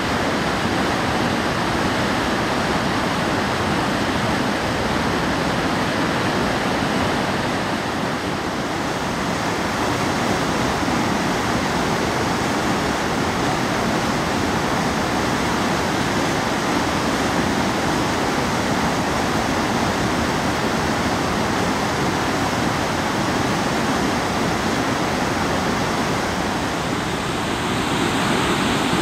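River rapids rushing over boulders: a steady rush of whitewater that changes slightly near the end.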